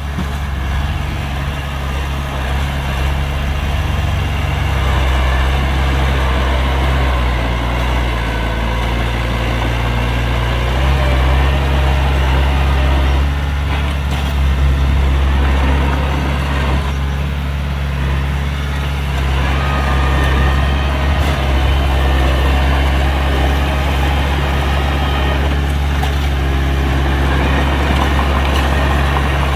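Heavy diesel engine of earthmoving machinery running steadily: a deep low drone with rough mechanical noise over it, the pitch shifting a little about a third of the way in.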